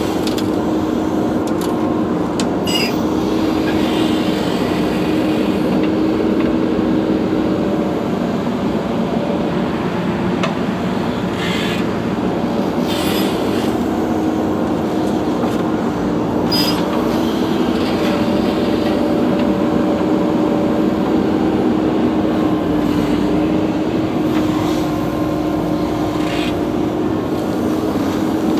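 Diesel engine of heavy earthmoving machinery running steadily under load, with a few brief clanks and scrapes.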